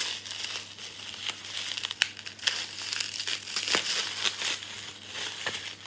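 Plastic bubble wrap crinkling and crackling as it is pulled off a book, with scattered sharp clicks, one louder about two seconds in.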